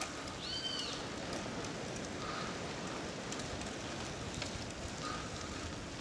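Steady rushing noise of wind on the microphone outdoors. A short rising-then-falling chirp comes about half a second in, and a faint short tone recurs every few seconds.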